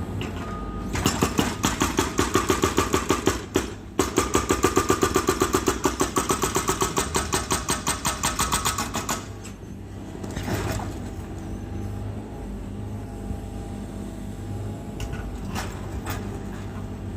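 Excavator's hydraulic breaker hammering at about six blows a second for some eight seconds, pausing briefly after about three seconds, over the steady hum of the diesel engine.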